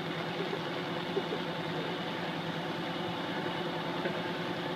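Steady drone of an idling engine over a continuous hiss of rain.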